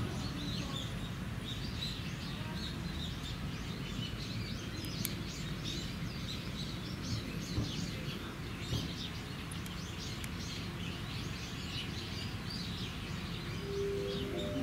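Small birds chirping repeatedly over a steady low background rumble of outdoor ambience, with a brief steady tone near the end.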